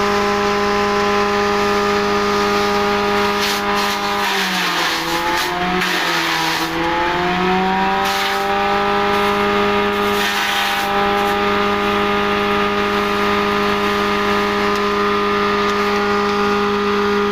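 Electric grass chopper, driven by a 1 HP electric motor through a belt, running at full speed with a steady high whine. A listener could mistake it for a grinder. Elephant grass is being fed in and chopped: the pitch sags under load for a few seconds about four seconds in, with a rough shredding noise, then recovers.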